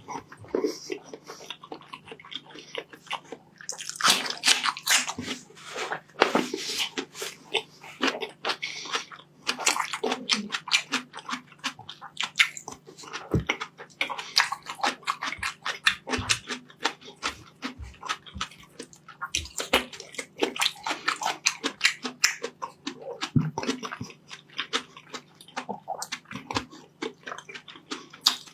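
Close-miked eating sounds: wet chewing and lip smacking of rice and meat, a dense run of irregular clicks and crackles over a steady low hum.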